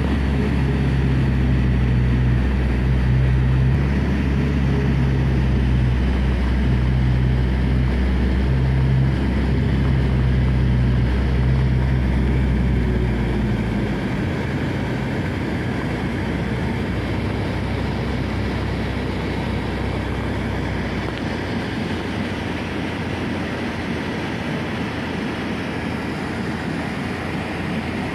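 Cabin noise inside a passenger van: engine and road rumble while moving. The rumble drops about halfway through as the van slows in traffic and eases further near the end, when it is stopped at a light.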